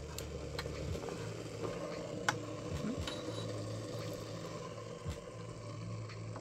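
Light clicks and taps of tea-set pieces being handled over a steady low hum, with one sharper click a little over two seconds in.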